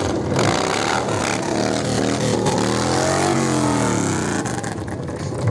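Motorcycle engine revving: its pitch climbs to a peak about three seconds in and then falls away.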